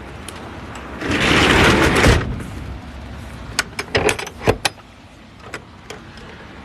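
Rummaging through gear in a work truck: a rustling rush about a second long, then a scatter of sharp clicks and knocks.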